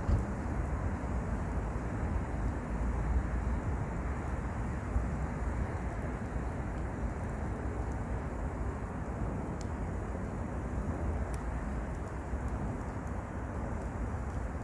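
Wood fire burning in a mesh fire pit: a steady low rush with a few faint crackles, under a rumble of wind or distant traffic.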